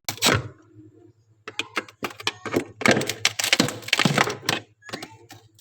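Irregular sharp clicks and knocks: a loud one right at the start, then a dense run of them through the middle, over a faint steady low hum.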